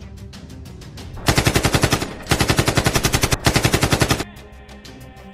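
Automatic machine-gun fire sound effect in two rapid bursts, the first about a second long and the second about two seconds, with a brief pause between.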